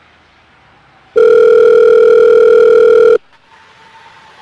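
Telephone call tone as a phone call is placed: one loud, steady beep lasting about two seconds, starting about a second in.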